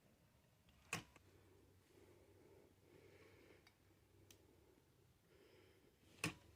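Near silence in a small room, broken by two sharp clicks, one about a second in and a louder one near the end.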